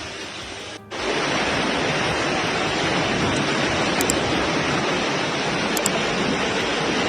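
Loud, steady rushing of water with no tone or rhythm. It starts abruptly about a second in, after a brief dropout.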